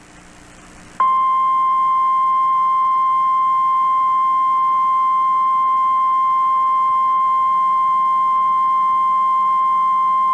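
Emergency alert tone, the NOAA Weather Radio warning alarm tone of about 1050 Hz: after a second of faint hiss, one steady, unbroken high tone starts and holds. It is the alarm that signals an urgent weather warning, here a tornado warning, about to be read.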